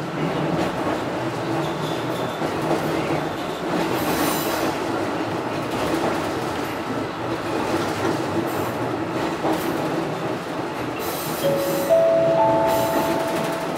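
Running noise of a Fukui Railway Type 200 railcar heard from inside the car: the steady rumble of wheels on the rails with occasional rail-joint clicks. Near the end a squeal of several steady pitches sets in as the train nears its terminus.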